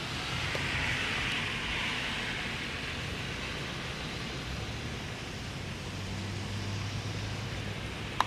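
Heavy rain falling steadily, a dense even hiss, with a faint low hum joining about halfway through.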